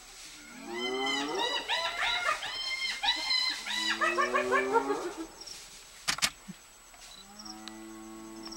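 Wild animal cries: a rapid run of high, rising-and-falling yelps for about four seconds, then a sharp knock, then a long, steady low call near the end.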